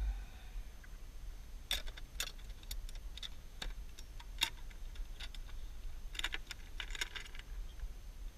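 Sharp plastic clicks and clacks of a plastic geocache box being unlatched and its lid opened by hand: separate clicks at first, then a quicker cluster near the end.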